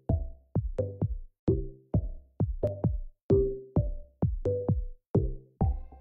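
Electronic intro music with a drum-machine beat: a steady run of short notes that die away quickly, about two to three a second.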